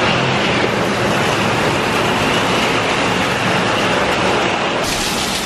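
Heavy tropical downpour: a loud, steady roar of rain, turning hissier near the end.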